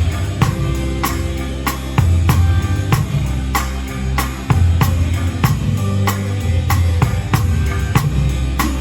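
Pearl Reference drum kit played to a backing song: a steady beat of kick and snare hits with cymbals, about two hits a second, over the song's long low bass notes.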